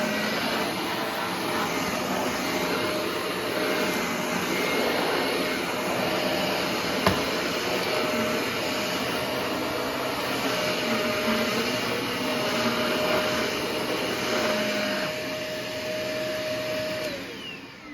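Shark Navigator bagless upright vacuum cleaner running steadily with a constant motor whine, with one sharp click about seven seconds in. Near the end it is switched off and the motor winds down, its pitch falling.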